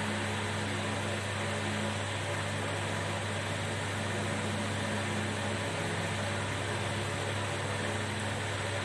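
Steady whirring and hum of a small electric fan motor on a repair bench, unchanging throughout.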